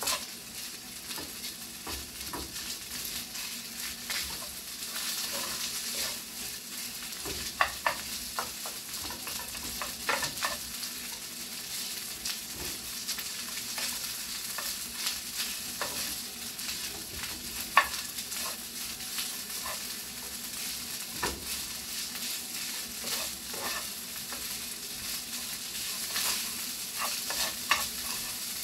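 Rice frying in a frying pan on a gas stove, with a steady sizzle, while a spatula scrapes and taps against the pan as the rice is stirred and turned. A few sharper knocks of the spatula on the pan stand out, the loudest about eighteen seconds in.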